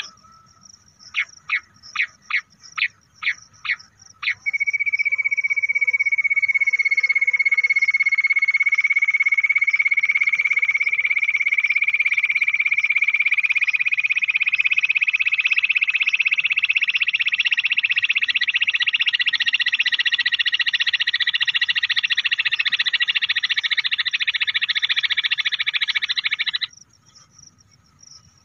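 Bush quail call: about eight short, sharp notes, then one long rapid trill whose pitch rises slowly over some twenty seconds before it cuts off suddenly.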